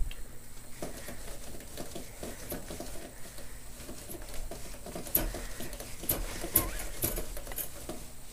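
A baby bouncing in a hanging doorway jumper: soft, irregular patting of feet on a tiled floor and movement of the harness, with several sharp clicks from about five seconds in.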